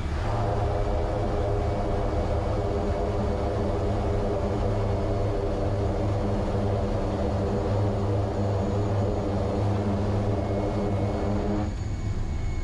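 Quest Kodiak 100's Pratt & Whitney PT6A turboprop engine and propeller heard inside the cockpit during the landing, a steady pitched drone over a deep rumble. The drone comes in suddenly at the start and cuts off shortly before the end.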